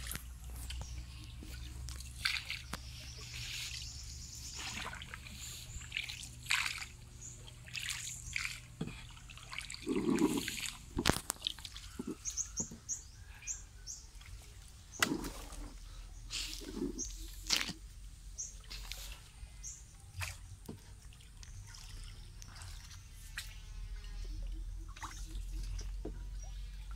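Hand paddle dipping and pulling through still canal water in repeated strokes, with water sloshing and trickling and dripping off the blade between strokes.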